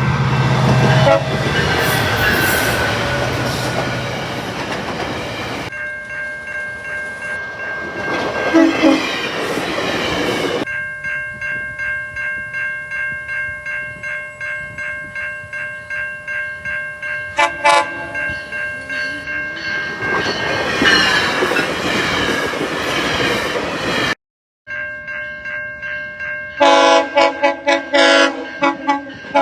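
Passing trains with locomotive air horns sounding. One horn holds a long steady chord for about fourteen seconds over a rhythmic clatter of wheels on rail joints. Near the end comes a quick series of short horn blasts. The rush of passing cars fills the gaps, and the sound cuts abruptly between takes.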